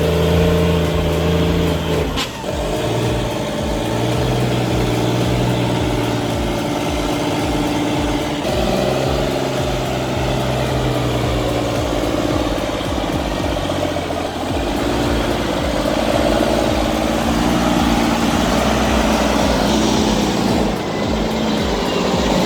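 A loaded logging truck's diesel engine running hard under load, its note shifting up and down in steps several times.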